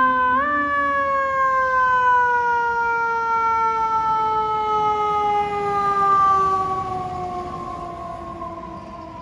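Fire engine's mechanical siren pushed up in pitch about half a second in, then winding down in one long, slowly falling wail that grows fainter over the last few seconds.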